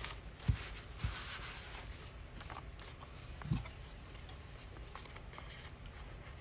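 Quiet handling of paper on a tabletop: faint rustling and rubbing as the paper pockets are worked and pressed down, with three soft low thumps, about half a second in, a second in, and three and a half seconds in.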